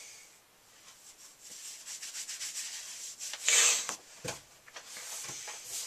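Handling noise from a hand-held camera: scraping and small clicks as fingers and fabric rub against the body and microphone. A louder, brief rustling burst comes about three and a half seconds in, followed by a low thump.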